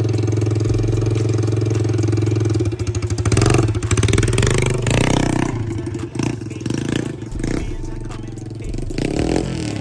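TaoTao pit bike's small single-cylinder four-stroke engine idling steadily, then revved hard about three seconds in as the bike pulls away, running quieter and unevenly as it rides off.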